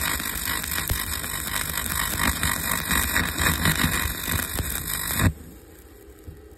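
Manual stick (electrode) arc welding on the steel angle and rods of a grounding loop: the arc's steady crackling hiss, which cuts off sharply about five seconds in as the electrode is lifted away.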